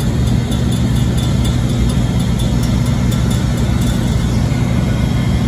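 CN diesel-electric locomotives running steadily at close range: a loud, even engine drone with no change in pitch.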